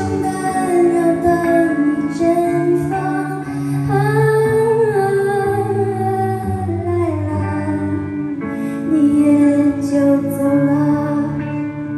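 A song with guitar accompaniment, a female voice singing long, sliding notes.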